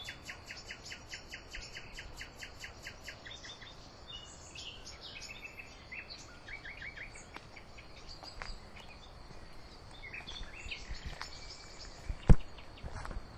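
Songbirds singing in the evening, opening with a fast run of repeated high chirps, then scattered calls and phrases. One sharp loud thump near the end.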